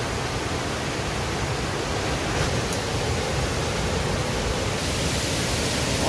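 Steady rush of a waterfall: an even wash of falling water with no change.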